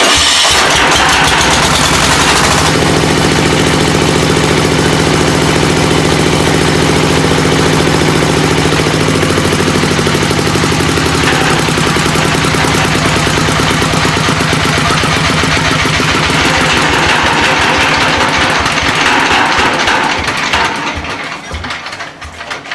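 22 HP single-cylinder diesel engine of a pellet mill started on its electric starter, catching at once and running with a fast, steady, thudding firing beat. About twenty seconds in it is shut off, its firing slowing and fading as it dies.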